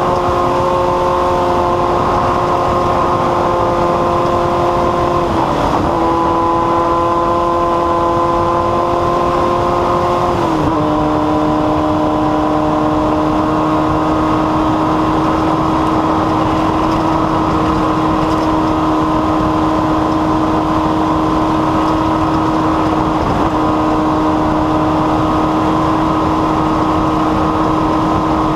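An engine running at a steady speed. Its pitch drops a little about five seconds in and again about ten seconds in, then holds level.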